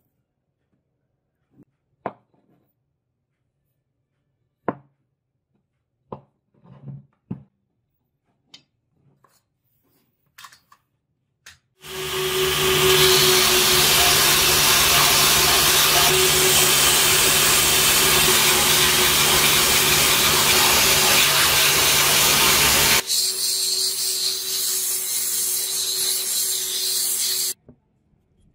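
A few light knocks and clicks of wood being handled, then a belt sander starts about twelve seconds in: a steady motor hum under a loud rasping hiss as a wooden block is sanded on the belt. About eleven seconds later the sanding hiss drops away while the machine's hum runs on, and all of it cuts off suddenly near the end.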